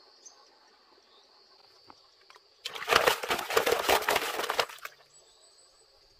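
Dry wood crackling and snapping in one dense burst of about two seconds in the middle, over a faint steady insect drone.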